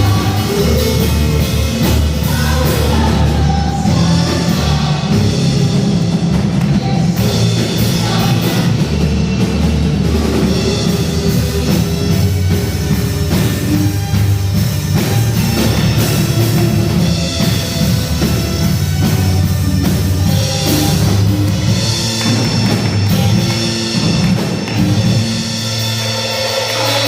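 Worship band playing a rock-style praise song with a full drum kit, with some singing.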